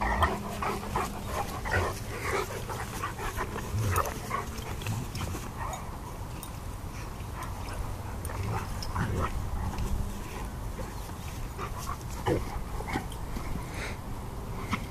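Two Greater Swiss Mountain Dogs play-wrestling: a string of short, irregular dog play noises and scuffling, busiest in the first few seconds.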